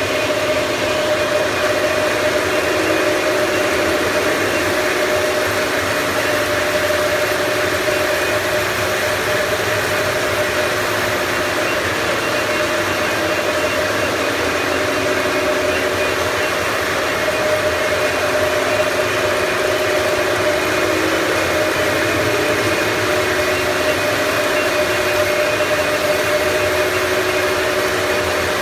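A steady mechanical hum with a constant mid-pitched tone over even noise, unchanging throughout.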